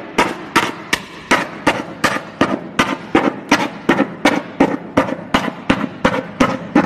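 Marching snare drum struck with a stick in sharp, evenly spaced hits, about three a second.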